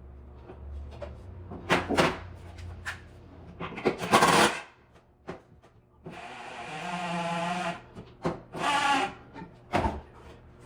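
Renovation work: a series of irregular knocks, clatters and scrapes, with a longer rasping sound about halfway through.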